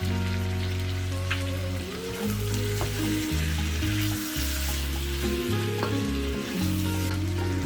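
Pork and chicken sizzling as they fry in a pan, with a few sharp clicks of a utensil stirring. Background music plays underneath.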